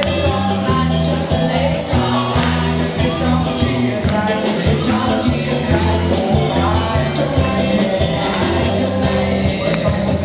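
Background song with singing over a steady bass beat.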